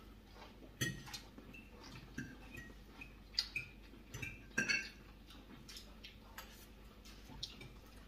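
Forks clinking against plates as several people eat at a table: scattered light clinks every second or so, some with a brief ring.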